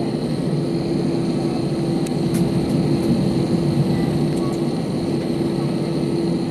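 Steady cabin drone inside an Airbus A319 jet airliner taxiing, with its engines at low power, and a constant hum running through it.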